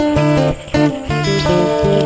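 Background blues instrumental music with plucked guitar notes over a stepping bass line.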